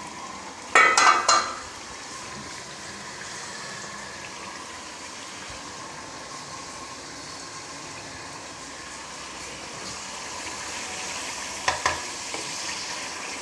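Steady sizzling hiss of food cooking in a pan on a gas stove. A loud clatter of metal cookware about a second in, and two light clinks near the end.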